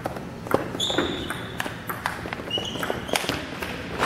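Table tennis rally: a quick, irregular run of sharp clicks as the ball strikes paddles and table, with shoes squeaking twice on the sport-court floor.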